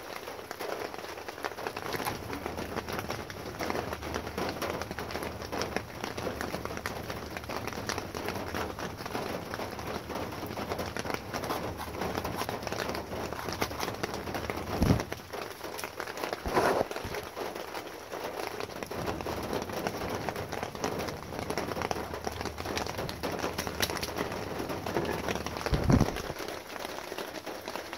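Pouring rain falling on a vehicle's roof, heard from inside the cabin as a steady patter, with a few dull thumps about halfway through and near the end.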